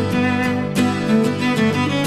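Instrumental music of bowed strings over plucked notes, with a steady succession of note changes.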